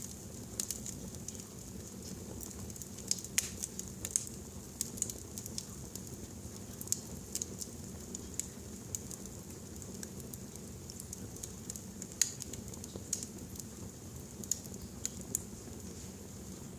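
Wood fire burning in a fireplace: irregular crackles and sharper pops over a low steady rumble of the flames.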